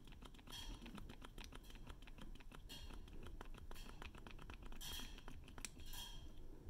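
Pump on a new bottle of liquid foundation being pressed over and over, a fast run of faint plastic clicks with a few short hissing puffs.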